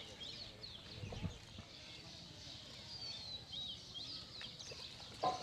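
Small birds chirping and twittering, with many short quick calls, over a faint open-air background. A low thump comes about a second in, and a brief louder sound comes near the end.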